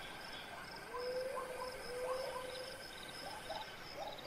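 Night wildlife ambience: insects trilling steadily while animals give many short, repeated arched calls, with two longer rising calls about one and two seconds in.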